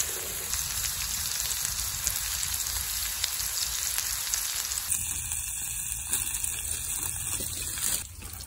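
Hamburger patties frying in hot fat in an iron frying pan over charcoal: a steady sizzling hiss dotted with small crackles and spatters. The sizzle drops sharply quieter near the end.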